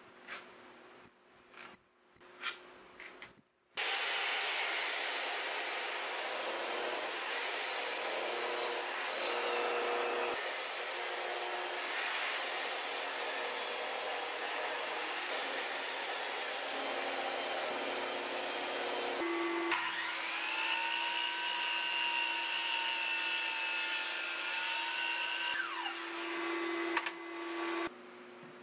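Bosch mitre saw cutting through an oak log: the motor starts about four seconds in and runs for some fifteen seconds with a loud, wavering high whine as the blade goes through the wood. It then starts again with a steadier whine and winds down near the end. Before the cut there are a few light knocks and a pencil scratching as the log is marked.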